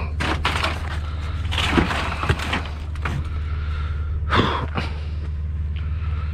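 Scrap being handled: scattered knocks and thuds, with a louder scraping rush about four seconds in, over a steady low hum.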